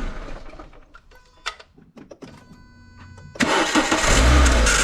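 Renault Clio 182's four-cylinder petrol engine switched off, then after a quiet spell with a few clicks and a faint steady whine, cranked and started again about three and a half seconds in. This is the start-up where the intermittent squeal is being chased, which the owners suspect comes from the servo motor in the electronic throttle body rather than the belt.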